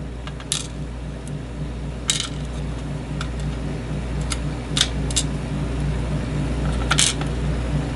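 Small metal clicks and taps, about half a dozen scattered, as the pins of a disassembled pin-tumbler lock are handled and laid out, over a steady low hum.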